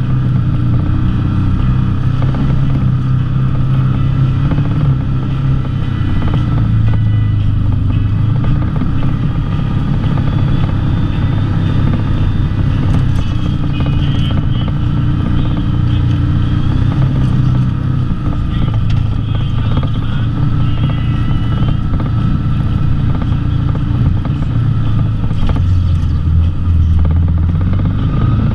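Can-Am Maverick XMR side-by-side's engine running steadily as it drives a dirt trail, its pitch rising and falling with the throttle.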